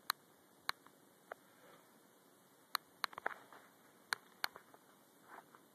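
About eight sharp, short taps at irregular intervals, some in quick pairs, against a quiet background.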